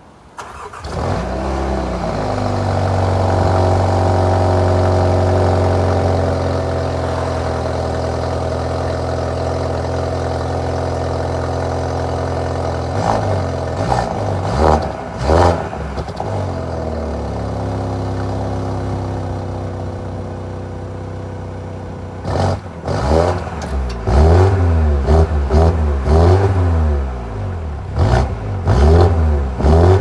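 BMW engine heard at the exhaust tips. It starts about a second in and runs a raised idle that settles after a few seconds, with vapour at the tailpipes that points to a cold start. It is then blipped a few times around the middle and revved in a quick run of blips over the last several seconds.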